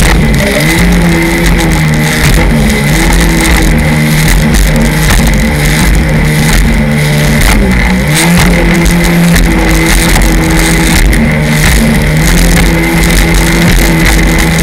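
Personal watercraft engine running at speed, its pitch dropping and climbing again a few times as the throttle is eased and opened, with rushing water and wind noise over it.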